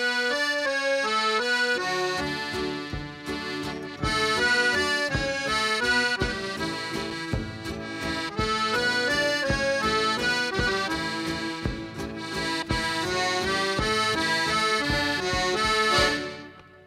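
Accordion playing the instrumental introduction of a folk song, with a steady beat joining about two seconds in.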